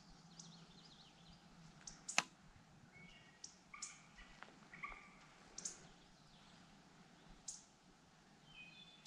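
Near-silent creekside quiet broken by scattered sharp clicks, one louder about two seconds in, and a few short bird chirps.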